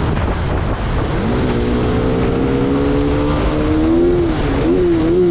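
Bajaj Pulsar RS200's single-cylinder engine on its stock exhaust, pulling on the road with its note climbing steadily. Near the end the pitch rises and falls with the throttle.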